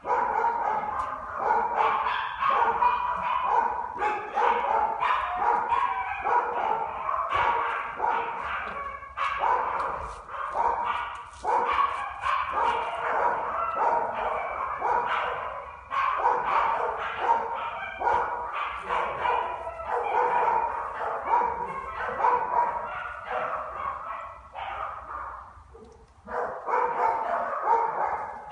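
Dogs barking at a kennels, rapid overlapping barks with hardly a pause, easing off briefly near the end.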